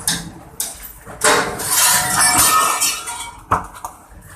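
Broken glass and debris clinking and rattling, with a few sharp knocks: the aftermath of a tornado shattering the house's windows.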